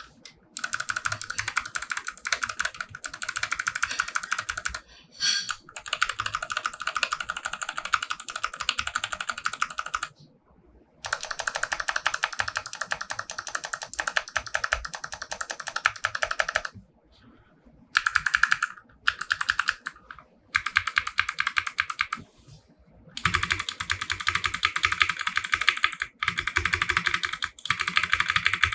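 Fast typing on a custom 60% mechanical keyboard with clicky Kailh Box White switches on a brass plate, under JTK Coca-Cola keycaps: dense runs of crisp clicks, broken several times by short pauses.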